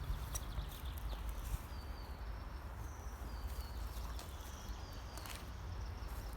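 Forest birdsong: short high chirping phrases repeated every second or so, over a steady low wind rumble, with a few sharp crackles of footsteps on dry leaves.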